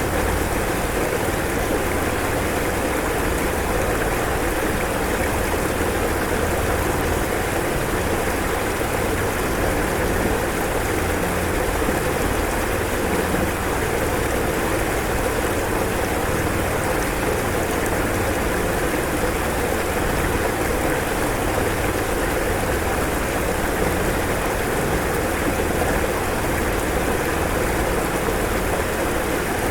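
Swollen floodwater rushing steadily.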